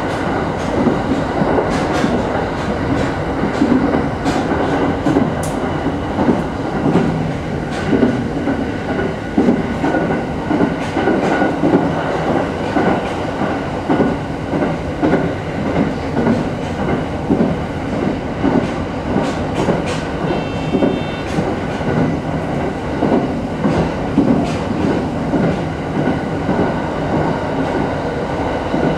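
E217-series electric train running at speed, heard from inside the front car. The wheels click over rail joints in a steady rhythm of loudness peaks, over a constant running rumble. A brief high tone sounds about two-thirds of the way through.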